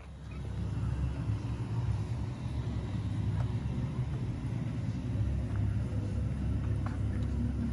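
A low, continuous rumble that starts at the beginning and holds steady, with its energy concentrated in the lowest frequencies.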